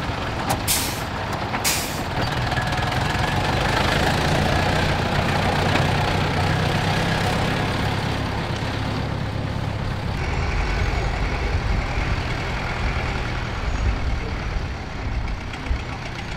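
Tractor diesel engines running under load while pulling ploughs: first a red cab tractor, then, after a change about ten seconds in, a Universal 650 tractor's engine. Two short hisses about a second in.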